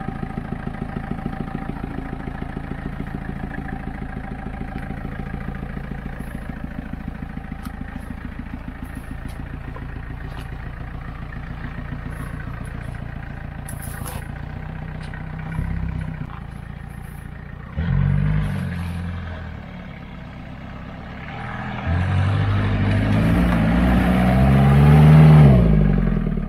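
1989 Mahindra jeep engine running at a steady, even chug, then revving up twice: briefly about two thirds of the way in, and longer and louder near the end, where it rises, peaks and drops back.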